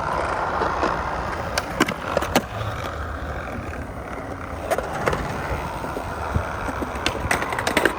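Skateboard wheels rolling on the ground, with several sharp clacks of the board, a few in the first half and a cluster near the end.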